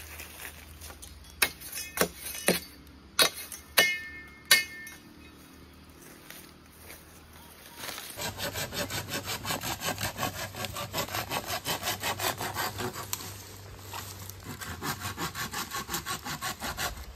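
Several sharp machete strikes on green bamboo, a couple ringing briefly, then after a short pause a fast, even run of sawing strokes cutting through the bamboo pole.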